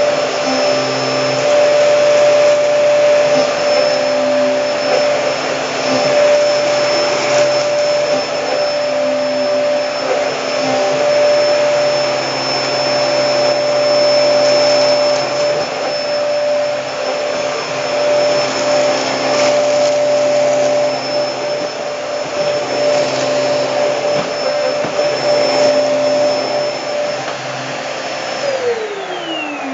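Hoover Hurricane pet-model vacuum cleaner running at full speed with a steady high whine, its sound shifting slightly as it works. Near the end it is switched off and the whine falls in pitch as the motor spins down.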